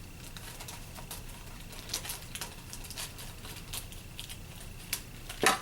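Small sewing-machine accessory parts being handled in their accessory box: scattered light clicks and rustles, with one louder clack near the end.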